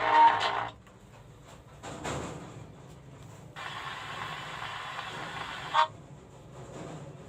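Music played through a loudspeaker cuts off abruptly under a second in. A low hiss and noise follow, with a sharp click near six seconds.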